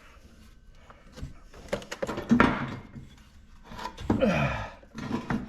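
Objects being handled and knocked about in a small room: scattered thunks and rustling, with a short falling vocal sound about four seconds in.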